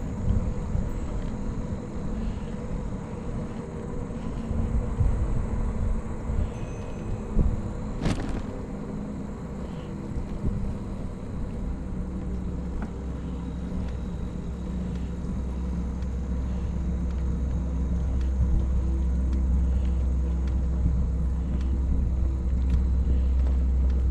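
Low wind and road rumble on the microphone of a camera carried on a moving bicycle, gusty at first and then steadier and louder in the second half, with a single sharp click about eight seconds in.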